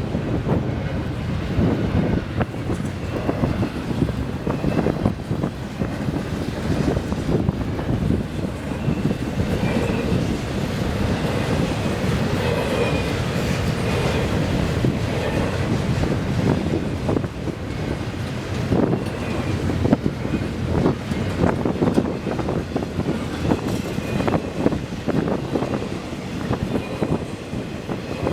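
Freight train of double-stack container cars rolling past at speed, the wheels clicking over rail joints in a steady stream, with faint short wheel squeals now and then. Strong wind buffets the microphone throughout.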